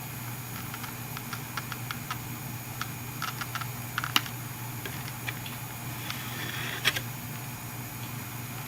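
Light, irregular clicks and taps of small plastic items being handled, with two sharper clicks about four and seven seconds in and a short rustle just before the second. A low steady hum runs underneath.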